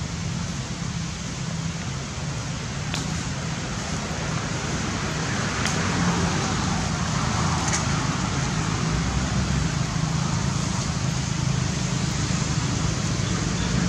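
Steady outdoor background noise with a low rumble and a few faint clicks.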